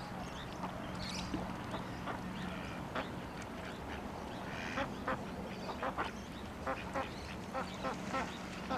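Ducks quacking: scattered short quacks at first, then a quick run of them from about five seconds in. A steady low hum runs underneath.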